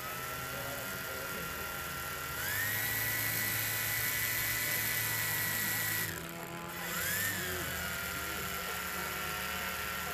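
Micro electric motor and propeller of a Microaces Fokker D.VIII model running on a stand: a steady whine that steps up in pitch about two and a half seconds in and holds. It drops back about six seconds in, swells briefly a second later, then settles at the lower speed.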